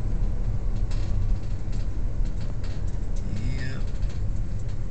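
Steady low rumble of a car driving, heard from inside the cabin, with a few light clicks. A short voice-like sound comes about three and a half seconds in.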